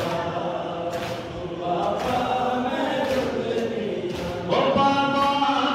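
Voices chanting a nauha, a Shia mourning lament, together, with sharp slaps keeping time about once a second. The singing grows louder about four and a half seconds in.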